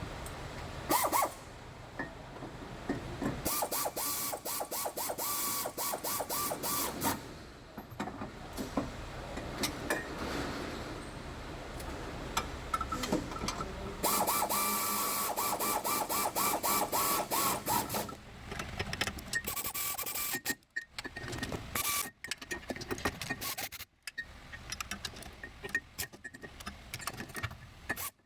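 Socket ratchet wrench clicking rapidly in repeated runs with short pauses between, as bolts are run in during reassembly of a rear wheel hub and brake.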